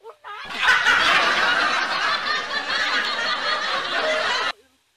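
Laughter sound effect, edited in: it starts suddenly about half a second in, runs loud for about four seconds, then cuts off abruptly.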